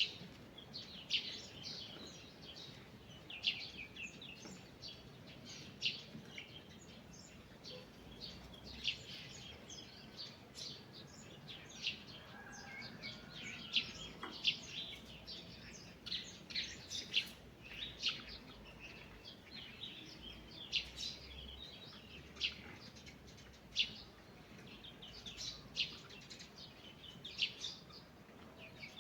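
Several small birds chirping and singing, short high calls and quick trills coming every second or so, over a faint steady hiss.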